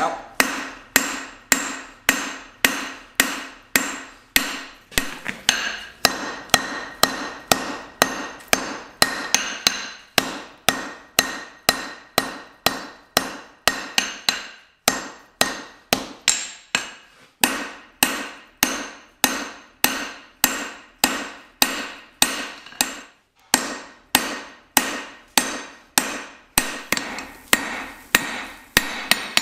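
Hand hammer striking red-hot steel on an anvil in a steady rhythm of about two blows a second, each blow ringing briefly, with a few short pauses. The hot bar is being flattened out on the anvil face.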